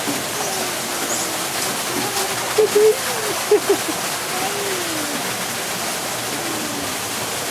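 A steady rush like running water, with faint voices sliding up and down in pitch over it, a few of them louder about three seconds in.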